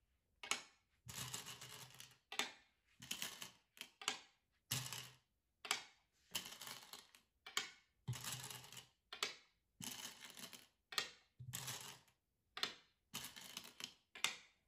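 Go stones clacking onto a Go board and clattering in their bowls as a hand picks them up and plays them one after another: a long irregular series of short, sharp clicks.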